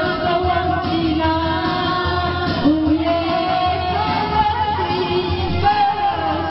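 Pop song playing: a singer holds long, wavering notes over a steady low accompaniment.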